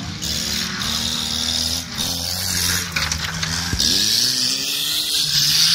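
Old wreck-race cars racing on a dirt track, their engines revving, pitch rising and falling as they accelerate and shift, over a steady hiss.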